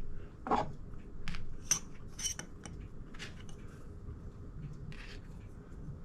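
Small steel parts of a Mosin-Nagant rifle bolt clicking and scraping as the firing pin and its spring are slid into the bolt body. A handful of short metallic clicks and scrapes come in the first half, and one more about five seconds in.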